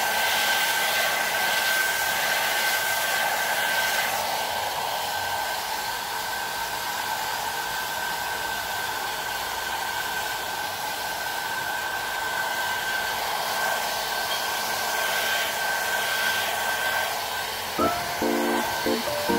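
Handheld pet grooming dryer blowing steadily: an even rush of air with a thin, high, steady whine. Music comes in near the end.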